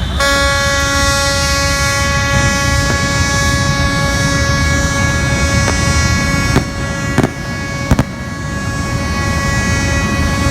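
A horn sounding one long, steady blast that starts suddenly and holds, over a low rumbling noise, as a ship is launched. Several sharp bangs break in, about five in the middle stretch.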